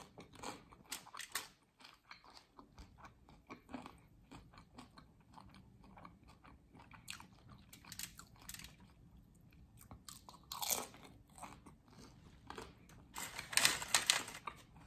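Close-up chewing of crisp fried corn tortilla, crunching and crackling between the teeth, with louder bouts of crunching near the end.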